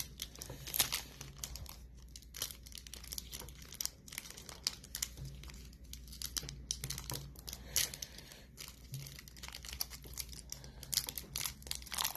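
Foil wrapper of a Pokémon card booster pack crinkling and tearing as it is worked open by hand at the top seam, with many irregular sharp crackles.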